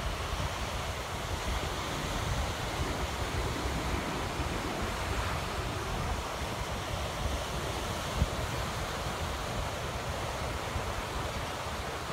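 Ocean surf washing steadily onto a sandy beach, with wind buffeting the microphone in a gusty low rumble. A single short bump about eight seconds in.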